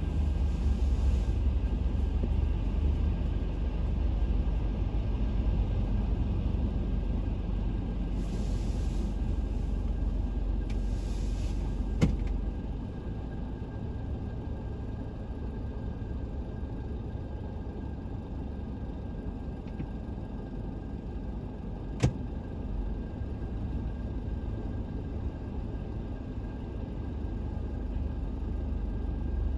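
Steady low rumble of a motor vehicle, heard from inside it, easing about halfway through; two sharp clicks, one near the middle and one about three-quarters of the way in.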